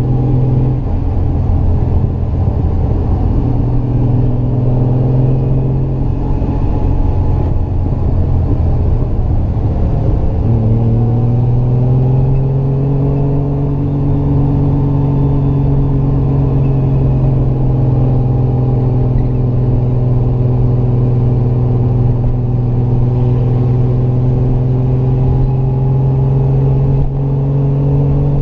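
Triumph GT6 Mk2's straight-six engine heard onboard while climbing a mountain road. Its note drops about a second in and stays lower for several seconds, then rises about ten seconds in as the car accelerates and holds steady under load.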